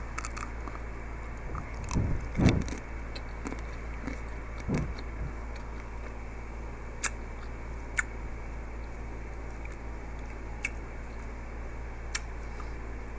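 Mouth sounds of biting into and chewing a cold chocolate-coated grape: a few crunches in the first five seconds, then occasional sharp clicks, over a steady low hum.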